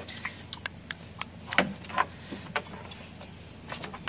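A pig eating watermelon on a wooden deck: scattered clicking crunches of chewing and hoof taps on the boards, with two louder snaps about one and a half and two seconds in.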